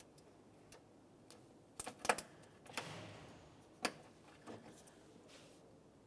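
Plastic push clip being prised up with a flat-blade tool: a few sharp plastic clicks about two seconds in, a short scrape, and another click near four seconds as the clip's centre pin and outer body come loose.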